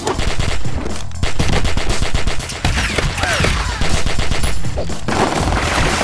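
Rapid, continuous gunfire sound effects from a cartoon gunfight: many overlapping pistol and automatic-weapon shots, with a few falling whines about halfway through.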